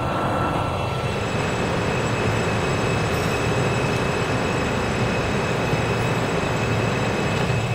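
R160 subway train pulling into the station alongside the platform: a steady rumble of the cars and wheels on the rails, with a thin, steady high-pitched tone over it.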